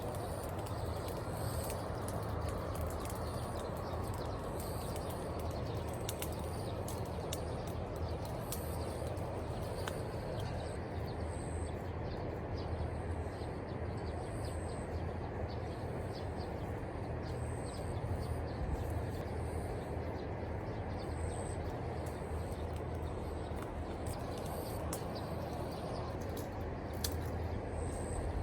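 Outdoor ambience: short, high bird chirps every second or two over a steady background rush, with a few faint clicks.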